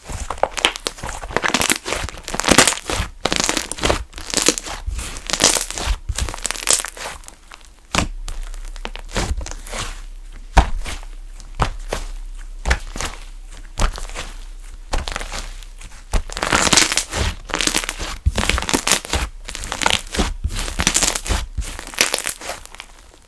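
Funfetti slime being squished, stretched and pressed by hand, giving dense runs of sticky clicks, crackles and small pops, quieter for a while in the middle.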